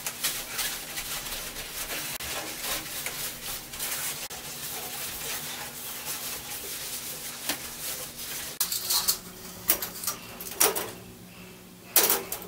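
Window glass being wiped down with Windex: steady rubbing and scraping with small ticks. In the last few seconds come several sharp clicks and knocks, the loudest near the end.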